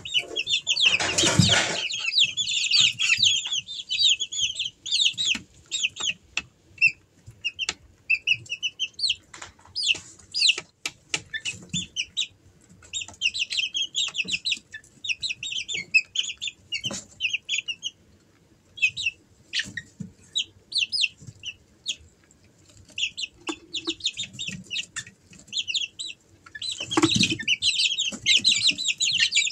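Month-old Easter Egger chicks peeping: many short, high cheeps, thick at first, thinning out in the middle, and building again near the end. A brief loud scuffle about a second in and another near the end, chicks moving about on the straw.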